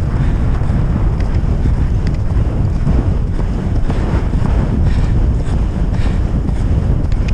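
Loud wind buffeting on a helmet-mounted camera microphone, a steady low rumble, caused by riding a horse at speed across open ground.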